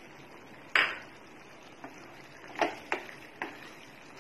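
A black spatula knocking against a steel kadai while stirring the cheese chili: about five short sharp knocks, the loudest about a second in, with quieter ones spread through the rest.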